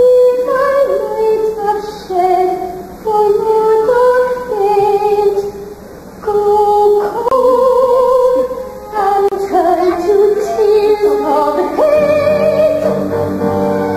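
A woman's voice singing a slow theatrical solo line with vibrato, in short phrases, over light accompaniment. About twelve seconds in, a fuller instrumental accompaniment with sustained low notes enters.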